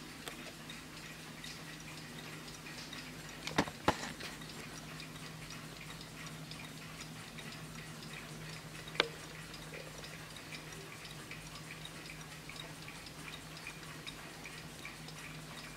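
Warmink vintage Dutch mantel clock ticking steadily as its pendulum swings, over a low steady hum. A few sharp clicks stand out: two close together about three and a half seconds in and one about nine seconds in.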